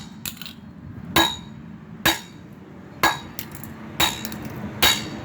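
A bat repeatedly striking a toy car: five sharp hits about a second apart, each with a brief clinking ring.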